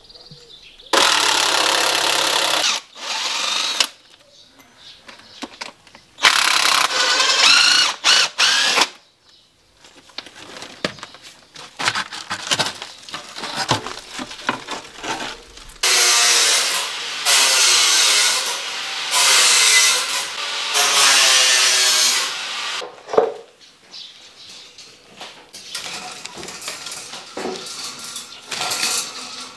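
Handheld electric power tool running in several bursts of a few seconds each, its pitch wavering under load, the longest run lasting about six seconds in the second half. Small clicks and knocks of tools and rebar come between the bursts.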